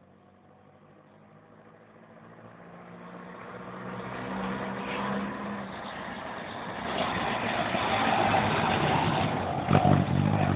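Car engine running and pulling away, the sound growing steadily louder over several seconds, with a couple of short knocks near the end.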